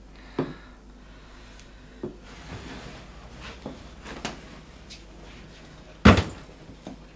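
A few separate knocks and clatters, with a heavy thump about six seconds in that is much louder than the rest, like a cupboard or door being shut.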